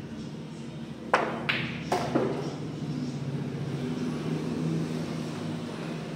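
Pool cue striking the cue ball, then hard clacks of billiard balls knocking together: four sharp clicks within about a second.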